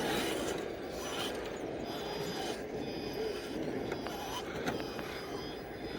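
Radio-controlled crawler running: a faint steady whine from its electric motor and gears, with rubbing and crunching over the ground and a few small knocks.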